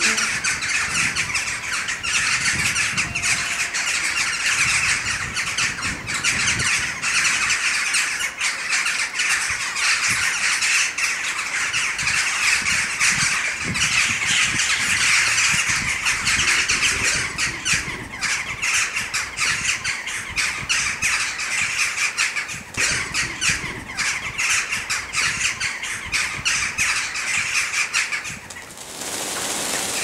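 A large flock of small crows calling all together in a dense, continuous chorus of overlapping calls. The din dips briefly about a second before the end, then picks up again as the birds take off.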